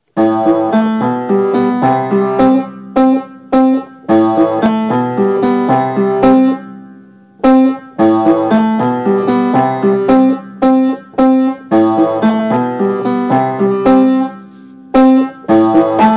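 Upright piano played solo: a melody of struck notes in short repeating phrases, easing off briefly about seven seconds in and again near fourteen seconds.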